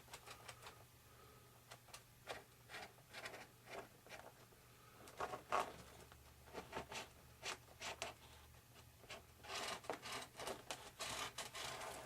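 Faint hand-work noises at a workbench: scattered light taps, rubs and scrapes, with a denser stretch of scraping and rubbing near the end.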